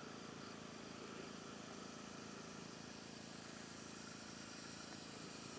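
Faint, steady drone of an E-flite Carbon-Z Cessna 150T RC plane's electric motor and propeller in flight.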